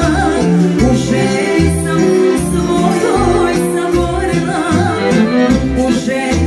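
Live music: a woman singing with vibrato into a microphone, amplified, over an electronic accordion playing the melody and a bass line that changes about twice a second.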